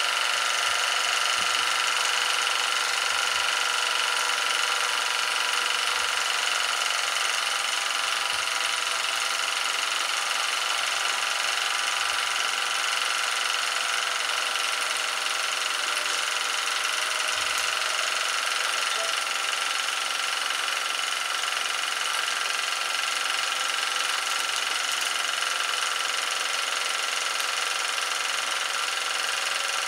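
Small toy live-steam engine running steadily, a continuous mechanical whirr with a hiss.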